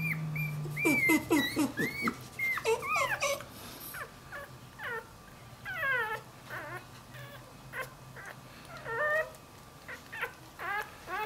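Newborn puppy squealing and whimpering in many short, high-pitched cries that swoop up and down in pitch, thick and fast for the first few seconds and then in scattered bursts: the cries of a newborn puppy searching for its mother.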